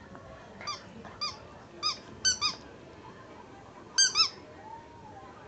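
Squeaky rubber dog toy squeezed over and over: seven short, high squeaks, several in quick squeeze-and-release pairs, a second or so apart.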